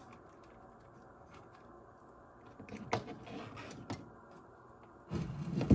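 Faint room tone, then light rustling and a few small clicks from about halfway in as loose wires and plastic connectors are pushed aside inside an opened ICOM IC-735 transceiver's chassis.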